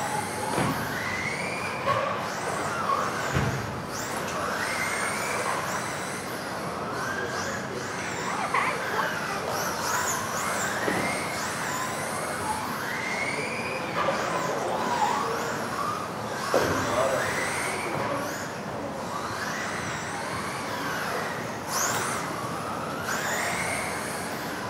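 Several electric 1:10 RC off-road buggies racing: motors whining, pitch climbing with each acceleration and falling away into the corners, again and again, over a steady hiss of tyres on the carpet track. Sharp knocks a few times from landings or hits.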